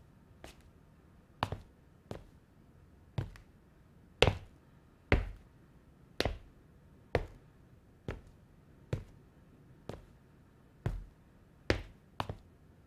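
Slow footsteps on a hard floor, about one sharp step a second.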